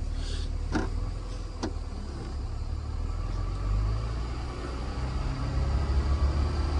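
Cummins diesel engine running with a steady low rumble, growing louder near the end, with a couple of light clicks in the first two seconds.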